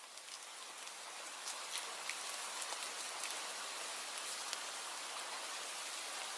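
Steady rain falling, a dense hiss with individual drops ticking, fading in over the first second or so.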